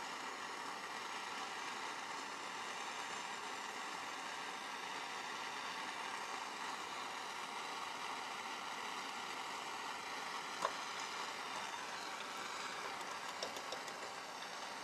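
Gas torch flame hissing steadily while it heats a screwdriver shank behind the tip to temper it. A single sharp click comes about eleven seconds in.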